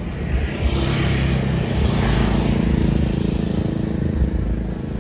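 A motor vehicle engine running as it goes past close by, with a steady low rumble; the hiss over it swells toward the middle and then eases off.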